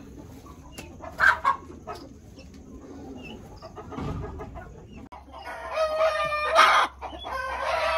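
Chickens clucking briefly, then a rooster crowing loudly for the last few seconds in one long call.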